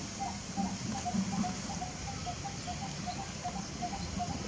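Outdoor ambience: a short call repeated about four or five times a second, the notes alternating slightly in pitch, over a steady high hiss.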